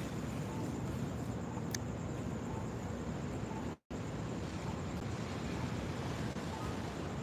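Steady rushing noise, heaviest in the low range, of water pouring from a broken water main and flowing along a street. The sound cuts out completely for a split second about halfway through.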